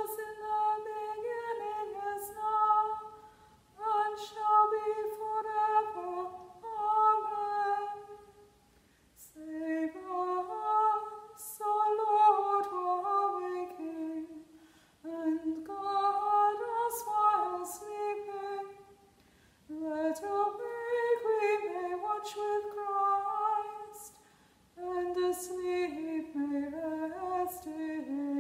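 A woman singing unaccompanied, in phrases of about four to five seconds with short pauses for breath between them.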